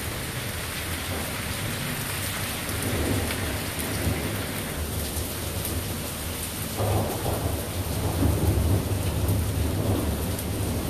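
Steady rain falling through a thunderstorm, with thunder rumbling low beneath it; the thunder swells about seven seconds in.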